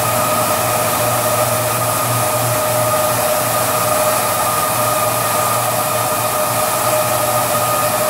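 Automatic carpet washing machine running: a steady mechanical hum and hiss with a constant whine from its motors and rotating brush heads as they scrub foamed carpet.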